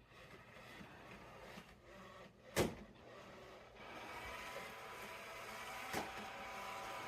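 iRobot Roomba j7+ robot vacuum running, its motor hum growing louder and picking up a steady whine partway through. A sharp knock comes about two and a half seconds in and a lighter one near the end.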